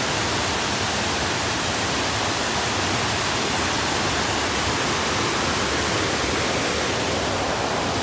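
Steady rushing of a small waterfall: river water pouring over a broad weir and tumbling across the rocks below.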